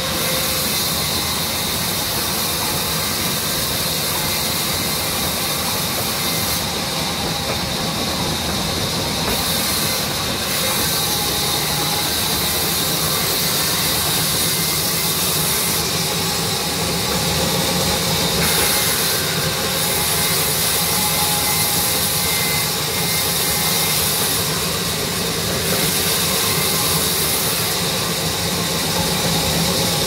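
Sawmill band saw running and cutting through a log as workers push it along the table into the blade: a steady mechanical whir with a strong hiss that swells and eases a little as the cut goes on.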